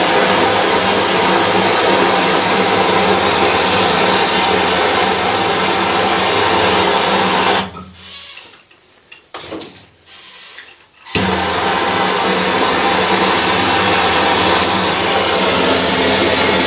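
Hose-fed gas torch flame burning with a steady rushing noise while heating a copper pipe fitting for soldering. The flame goes out about halfway through, a few faint clicks follow, and it comes back on suddenly about three seconds later.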